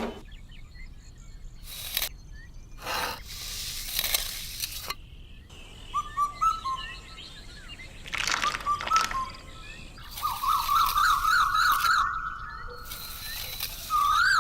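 Bird-like chirps and warbling trills, broken by several short bursts of hissing noise that start and stop abruptly.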